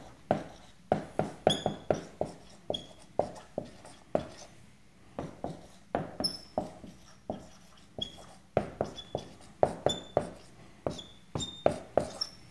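Dry-erase marker writing on a whiteboard: a quick, irregular series of taps as the tip strikes the board, many of them with a short high squeak as the stroke is drawn.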